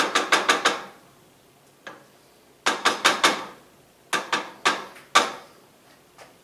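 Wooden spoon knocking against a stainless steel saucepan in three quick runs of about five sharp knocks, with a single knock between the first two runs.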